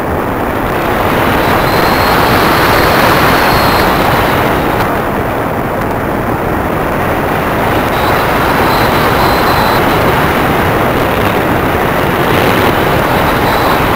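Steady rushing of air and the electric pusher propeller, picked up by a camera riding on a Multiplex EasyStar model plane in flight. A faint high whine comes and goes a few times.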